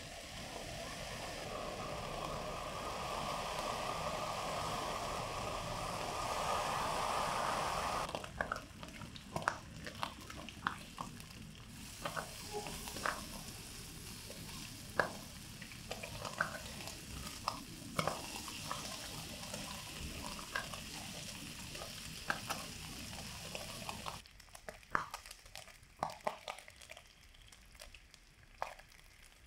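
Bacon strips frying in a hot nonstick pan: a loud, dense sizzle at first, then softer sizzling with many scattered pops and clicks as the strips are turned with a spatula.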